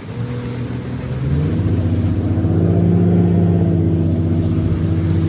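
Boat motor running, stepping up in pitch and loudness about a second and a half in as it speeds up, then holding a steady drone.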